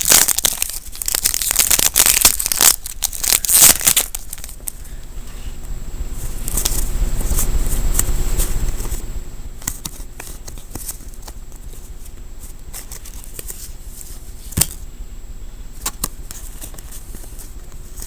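Foil wrapper of a Pokémon TCG booster pack crinkling and tearing open, loud and crackly for the first four seconds. Then quieter rustling handling, with a few single clicks near the end.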